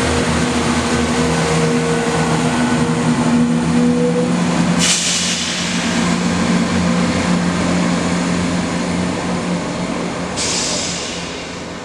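CrossCountry Class 170 Turbostar diesel multiple unit running through the station: the underfloor diesel engines drone and the wheels run on the rails, with a sudden hiss about five seconds in and again near the end. The sound fades as the train draws away.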